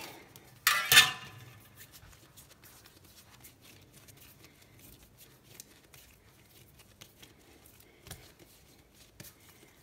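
Metal bench scraper cutting through dough and scraping hard across a granite countertop in one short, loud scrape about a second in. After it come only faint taps and rustles of hands rounding dough balls on the counter.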